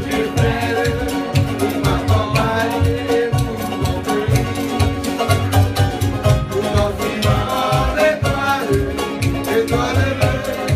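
Live Tahitian-style string band: acoustic guitars and ukuleles strummed together over a steady low beat, with voices singing.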